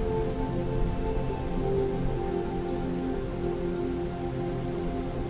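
Steady rain falling, with soft held piano notes at changing pitches beneath it.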